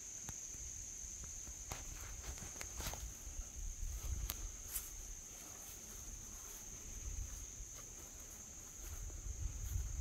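A steady, high-pitched chorus of insects, with a low rumble underneath and a few sharp clicks in the first half.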